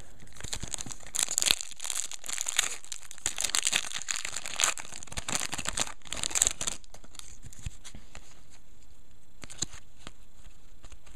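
Trading-card pack wrappers being torn open and crinkled, busy crackling for the first several seconds, then thinning to scattered crackles and clicks.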